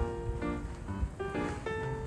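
Background music: a light keyboard melody of short notes moving up and down in quick succession.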